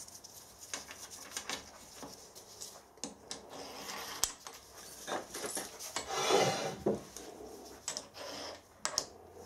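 A heavy cast-iron Record No. 25 engineer's vice being handled and shifted on a milling machine's steel table. Scattered light metal clicks and knocks, with a longer scrape about six seconds in.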